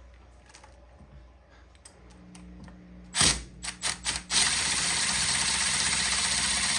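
Cordless impact driver backing out a heat-loosened stuck screw from an aluminium billet part. A knock and a few clicks come a little past three seconds in, then from about four seconds in the driver runs on with a steady, loud, rapid rattling hammering.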